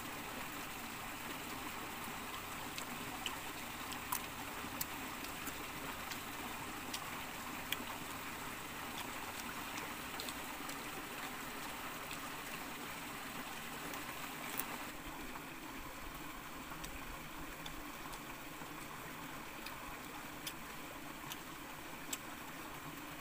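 Shallow rocky stream trickling steadily, with scattered small sharp clicks over it.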